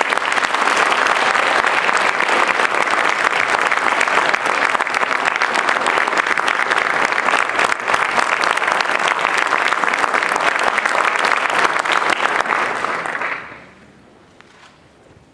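Concert hall audience applauding steadily, a dense clatter of many hands clapping, which dies away quickly about 13 seconds in.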